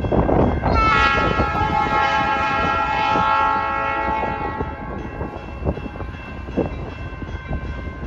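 Air horn of a CN EMD SD75i locomotive sounding one long chord blast of several steady tones together. It starts about a second in and grows weaker in the second half, over the low rumble of the train.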